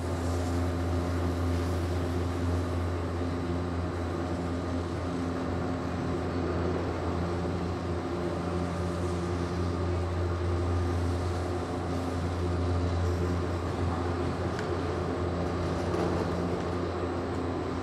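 Gondola lift running: a steady low mechanical hum with an even drone that does not change, starting and stopping abruptly.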